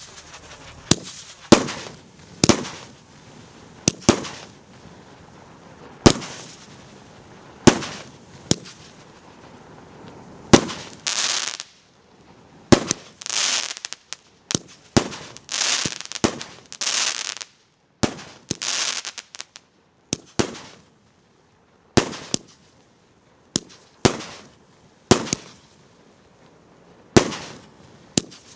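Galaktika 25 consumer fireworks cake, a 25-shot 1.2-inch battery, firing shot after shot: sharp bangs roughly one to two a second, each followed by a short fading crackle. In the middle stretch the crackle after the bursts is denser and longer, from the glitter effects of the stars breaking.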